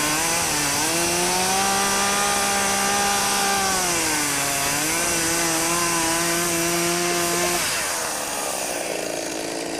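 Chainsaw engine running at high revs. Its pitch rises about a second in, sags and recovers about four seconds in, then drops away to a quieter level near the end.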